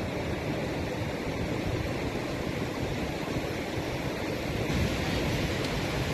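Steady rush of sea surf breaking along the beach, with a low rumble underneath; it gets a little louder about three-quarters of the way in.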